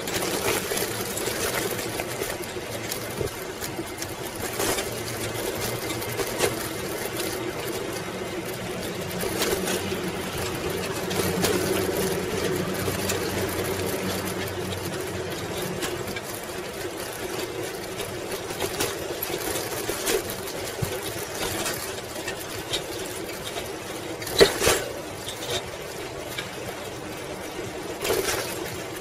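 1995 Schwinn Classic Cruiser bicycle being ridden, heard through its bike-mounted camera: a continuous rattle and rolling noise from the tyres and frame on a concrete path, with many small clicks and two sharper knocks near the end as it rides over bumps.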